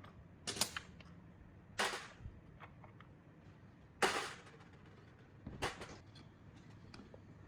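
Four sharp clacks, irregularly spaced a second or more apart with the third the loudest, and fainter clicks between them: hard objects knocking during hands-on work.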